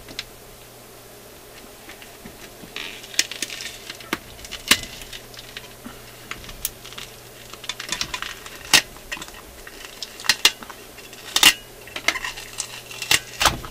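Irregular light metallic clicks and clinks, with some scraping, as a BSR turntable platter is worked loose from its spindle and lifted off.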